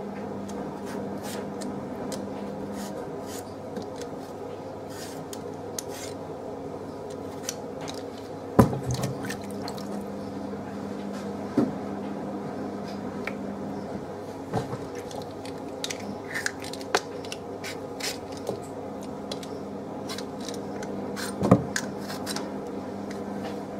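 Potato peeler scraping the skin off a potato in many short, irregular strokes, with two louder sharp clacks, one about a third of the way in and one near the end, over a steady low hum.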